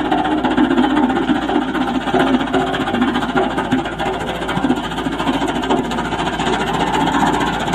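Sakai SV512D single-drum vibratory road roller running as its steel drum rolls over a freshly spread layer of loose stone, a steady diesel engine sound with a fast, even rattle.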